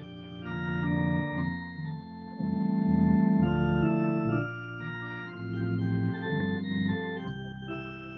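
Organ playing a hymn tune in held chords that change every second or so, with no voice singing over it.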